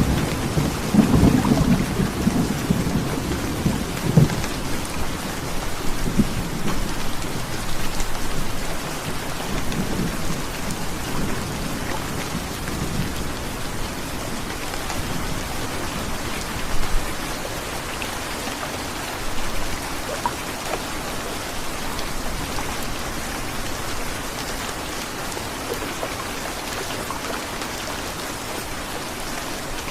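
Heavy rain falling steadily, with a roll of thunder rumbling loudest at the start and dying away over the first dozen seconds.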